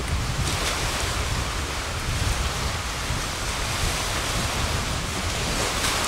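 Wind on the microphone: a steady rushing noise with a low, uneven rumble of gusts buffeting it.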